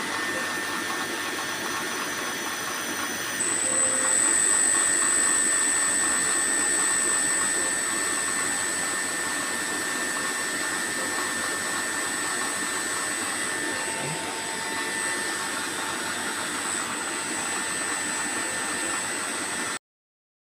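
Electric motor running steadily on an HPMONT HD30 inverter drive during a load test after repair, with a steady rushing noise. A steady high-pitched whine sets in about three seconds in. The sound cuts off abruptly near the end.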